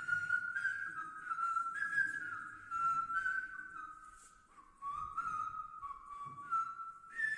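A person whistling a Hindi film song melody: a run of held notes stepping down and back up, with a few short breaths between phrases.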